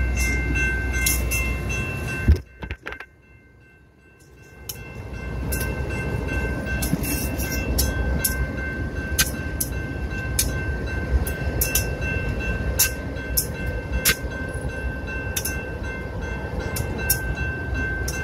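Passenger train rolling past at close range: a steady low rumble of wheels on rail and the Cuyahoga Valley FPA-4 diesel units, with scattered sharp clicks and a steady ringing tone from the grade-crossing warning bell. The sound drops almost to nothing for about two seconds near the start, then returns.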